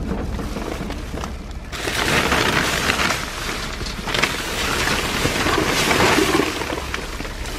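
Plastic trash bags and packaging rustling and crinkling as the contents of a dumpster are rummaged through, getting louder about two seconds in, over a steady low rumble.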